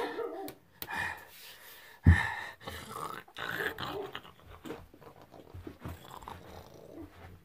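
A man making growling, dog-like noises with his voice, in short bursts. A loud thud comes about two seconds in.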